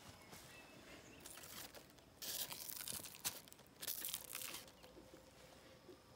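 Cucumber vine leaves rustling in three short bursts as they are pushed aside.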